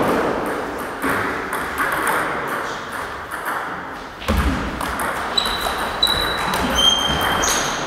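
Table tennis ball clicking off paddles and the table in a quick doubles rally, with a dull thump about halfway through. In the second half come short high squeaks, typical of sports shoes on a wooden hall floor.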